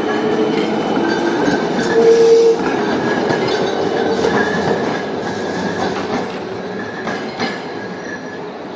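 A tram running through a curved track junction: steel wheels rumbling and squealing on the rails, with the loudest squeal about two seconds in and a couple of clicks over the rail joints near the end. The sound fades as the tram moves away.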